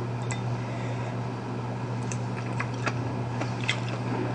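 Faint eating sounds, a few soft clicks of chopsticks and chewing, over a steady low hum.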